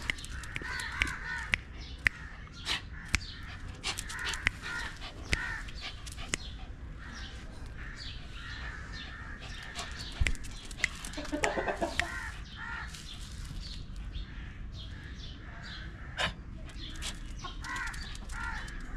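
Chickens clucking on and off, with scattered short sharp clicks.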